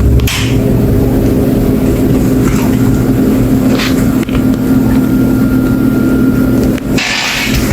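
Ceiling fan running: a steady motor hum with a low droning tone, and a brief louder hiss near the end.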